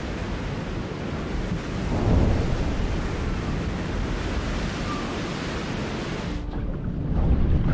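Steady rush of ocean surf breaking, swelling about two seconds in. Near the end the hiss drops away, leaving a lower rumble.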